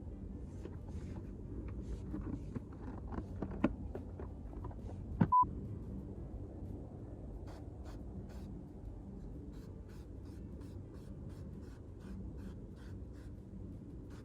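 Hands working on car interior plastic trim: light clicks, scrapes and taps, with one sharp knock and a very short beep about five seconds in, then a run of light clicks.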